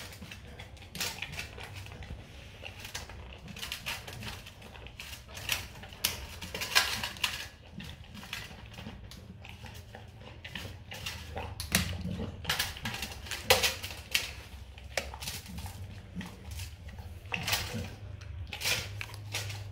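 Rottweiler licking and nosing the last dry kibble around a stainless steel bowl, the metal bowl clinking and scraping in irregular knocks.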